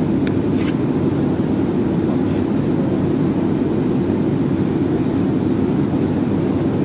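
Steady low rumble of a passenger airliner's cabin in flight: constant engine and airflow noise.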